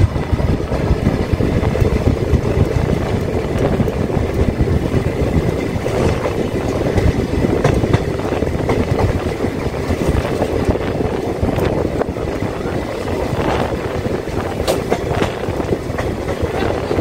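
Shiv Ganga Superfast Express passenger train running on the rails, heard from the open coach door: a steady rumble of wheels on track and rushing air, with scattered sharp clicks.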